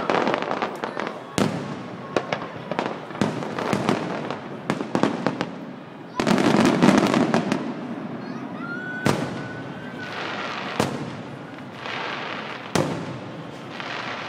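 Aerial fireworks shells bursting in an irregular series of sharp bangs and crackles. The densest, loudest stretch comes about six seconds in.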